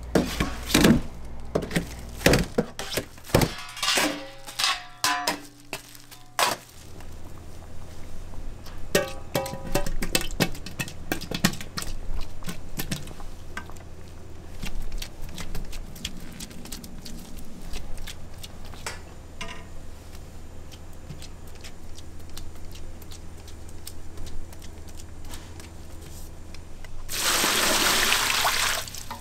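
Stainless steel hotel pan knocking and clattering as it is handled and set down, with scattered kitchen clinks. Near the end, water gushes into a large pot of seonji (coagulated ox blood).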